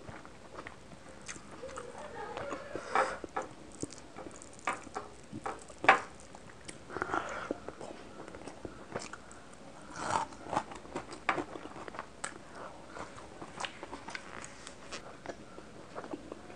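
Close-miked mouth sounds of a person eating rice and fish curry by hand: soft, wet chewing with irregular lip smacks and clicks.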